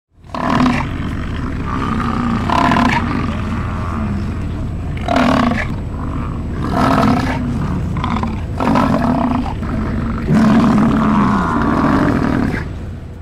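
American bison bellowing: a series of long, low, roaring calls, about six or seven in a row, over a steady low rumble.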